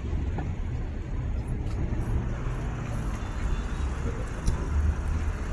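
Low, steady rumble of city street traffic.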